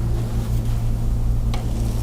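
A steady low machine hum, with one faint click about one and a half seconds in.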